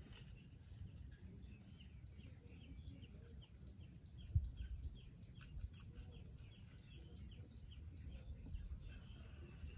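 A bird chirping faintly in a long, even run of short falling notes, about three a second, over a low rumble. A brief low thump about four and a half seconds in.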